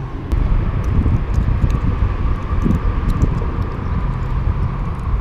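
Steady rumble of freeway traffic on the elevated highways overhead, with a few faint light clicks.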